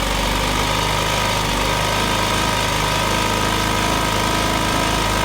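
Small engine of a 2005 Arctic Cat 90 kids' ATV running steadily after being started.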